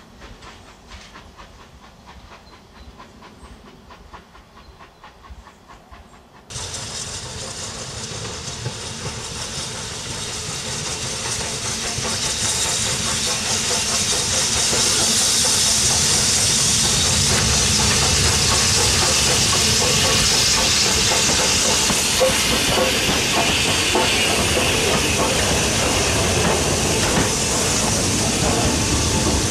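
Steam locomotive passing with a train: a loud, steady hiss of steam over the rumble of the coaches rolling by. The sound is faint at first, jumps up about six seconds in, and the hiss builds over the next several seconds before holding steady.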